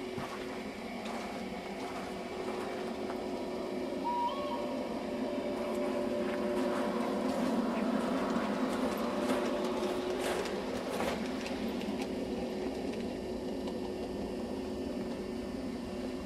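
LGB garden-scale model train in RhB livery running on outdoor track: a steady motor and wheel hum that grows louder as the train passes close, about halfway through, then slowly fades. A few sharp clicks come just after it passes.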